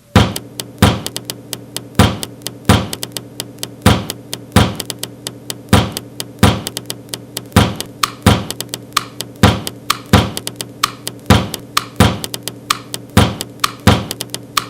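Instrumental hip-hop beat built from percussive knocks and thuds: a loud hit about once a second with quicker, lighter hits between them, over a steady low hum.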